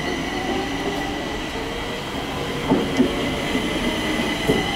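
Stockholm metro train pulling into the platform, with a steady high-pitched whine from its running gear and a couple of short knocks about three seconds in.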